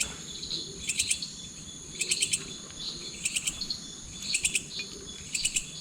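Night insects chirping, one short trill of quick pulses about once a second, over a steady high-pitched insect drone.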